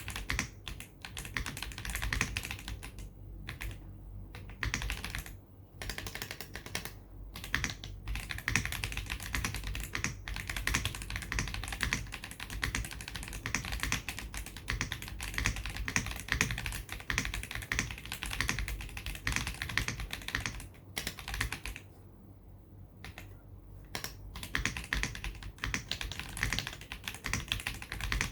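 James Donkey A3 mechanical keyboard with pre-lubed WS Heavy Tactile switches and CMK Modern Dolch keycaps being typed on in fast, continuous runs of keystrokes, a clacky and poppy sound. There are a few short breaks in the typing a few seconds in, and a longer pause of about two seconds a little past the twenty-second mark.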